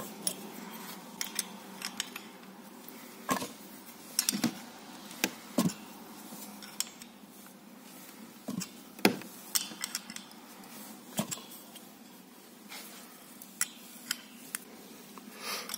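Open-end wrench clinking against a threaded bolt as it is turned in short strokes to tension a steel wire: irregular sharp metallic clicks, some close together, some a second or more apart.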